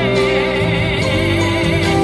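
Choir singing a Christian song live, with a female soloist at the microphone and instrumental accompaniment; held notes, one voice wavering with vibrato near the start.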